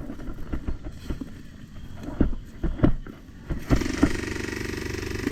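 Scattered sharp knocks, then from about three and a half seconds in a rapid, evenly pulsing buzz of an airsoft electric gun firing a full-auto burst for about two seconds.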